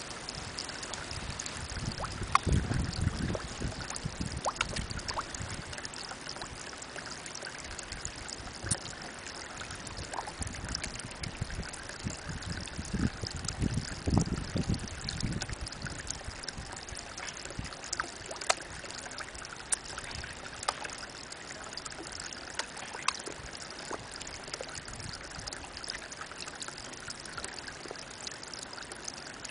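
Spring water falling in a thin stream into a pond, a steady trickle and splash with scattered small drips. A low rumble comes in twice, about two seconds in and again around the middle.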